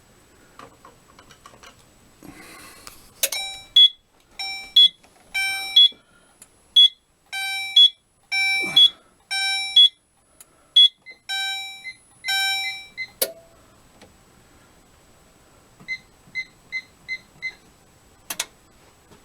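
Fire alarm sounding in short pitched pulses, roughly once or twice a second, for about ten seconds, then cutting off with a click. A few seconds later comes a run of five quick high electronic beeps, then another click.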